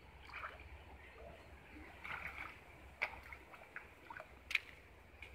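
Shallow muddy pond water sloshing and splashing lightly as hands grope through it around a cast net, with several small, sharp splashes, the sharpest about four and a half seconds in.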